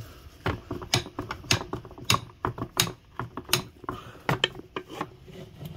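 Steel tire pry bar clicking and clanking against a mower wheel's steel rim as the tire bead is levered off: a dozen or so sharp, irregular knocks.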